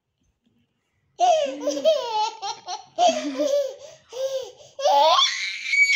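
Baby laughing in repeated high giggling bursts, starting about a second in and ending in a rising squeal.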